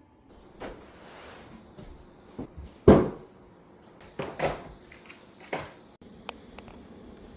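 Household handling noises: a series of knocks and clunks, as of things being set down or a cupboard door being moved, the loudest about three seconds in and a sharp click near the end.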